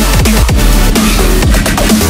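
Electronic dance music with a steady, heavy beat and repeated falling pitch sweeps in the bass.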